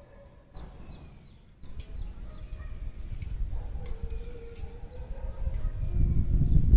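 Wind buffeting the phone's microphone as a low, uneven rumble that grows louder toward the end, with birds chirping faintly.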